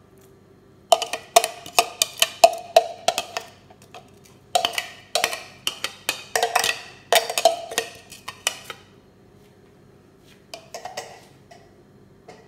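Metal spoon knocking and scraping against a plastic blender jar to get blended onion, garlic and ginger paste out into a glass bowl: quick runs of sharp taps in several clusters, dying away about nine seconds in, then a few lighter taps near the end.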